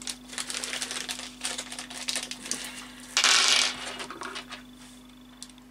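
Small M5×25 mm steel screws clicking and clinking against each other and the desk as they are picked out and counted by hand, with a louder half-second rustling burst about three seconds in.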